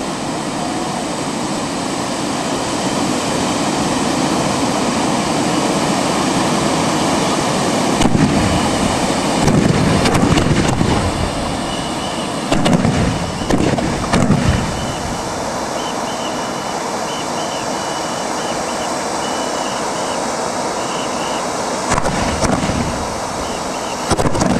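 Many hand-held bamboo tube fireworks (tezutsu hanabi) spraying sparks at once: a loud, steady rushing hiss. Several louder surges and sharp cracks come about a third of the way in, again a little past halfway, and near the end.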